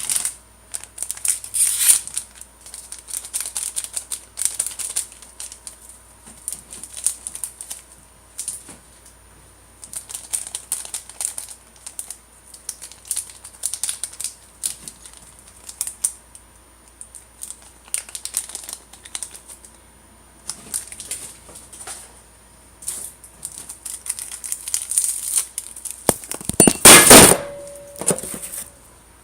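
Plastic food packaging crinkling and rustling in short irregular bursts as it is handled, with a louder burst of handling noise near the end.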